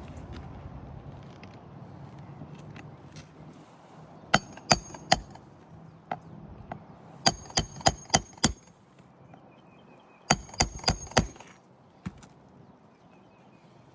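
A claw hammer driving roofing nails through an asphalt shingle: three runs of quick blows, three to five strikes each, every strike with a short metallic ring from the nail.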